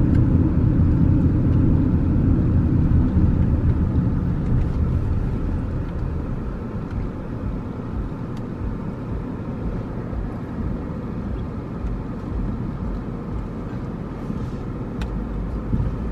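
Steady road and engine rumble inside a moving car's cabin, easing off after about five seconds.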